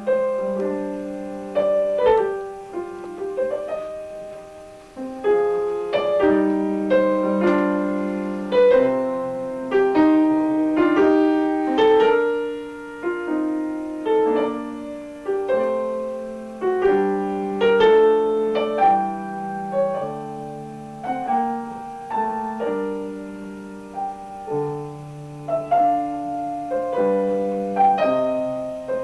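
Piano playing a tune in chords, with notes struck one after another and left to ring.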